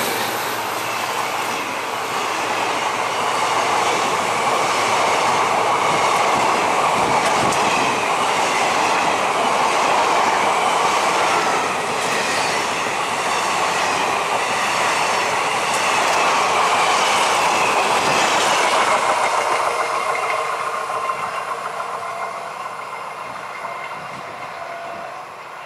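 Coaches of a passenger express train running past close by at speed, the wheels clattering in a steady rhythm over the rail joints. From about nineteen seconds in, the noise fades steadily as the train draws away.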